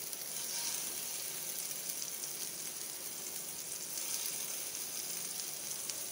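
Meat-mince kebabs sizzling steadily as they shallow-fry in a little oil in a frying pan. The sizzle swells a little as more kebabs are laid in.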